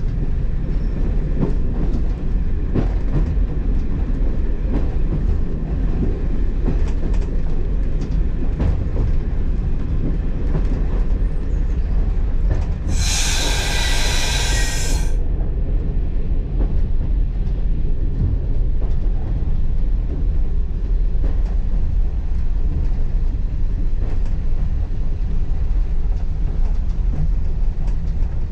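Class 117 diesel multiple unit running along the line, heard from the driver's cab: the steady rumble of its underfloor Leyland diesel engines with wheels clicking over the rail joints. A shrill sound about two seconds long cuts in about halfway through.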